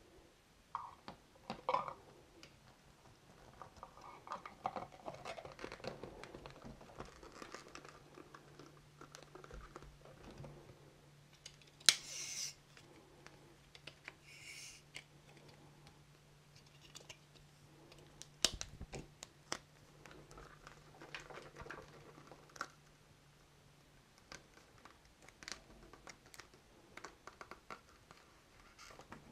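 Plastic handling noises as a TRS-80 power supply's plastic case is fitted back together and turned over: scattered light clicks, scrapes and rattles, with one sharp snap about twelve seconds in and another click a few seconds later. A faint low hum runs through the middle.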